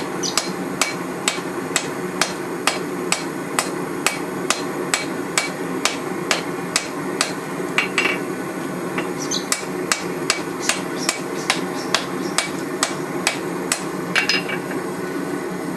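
Steady hand-hammer blows on hot steel at an anvil, about two strikes a second, over a steady low roar: forge welding a laminated billet of wrought iron and W2/1095 steel.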